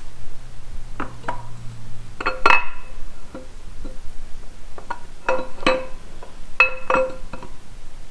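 Camshaft being slid slowly out of an iron-block LS V8, its lobes knocking against the cam bearings and bore: irregular ringing metallic clinks in small clusters, the loudest about two and a half seconds in.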